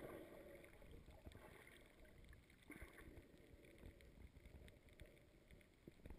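Near silence: faint muffled underwater noise picked up by a submerged camera, a low rumble with a few soft clicks.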